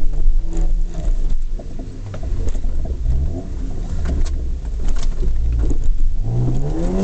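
Mercedes-Benz 230GE's four-cylinder petrol engine heard from inside the cab, revving up and down under load on rough ground, rising again near the end. Frequent knocks and rattles come through over the engine.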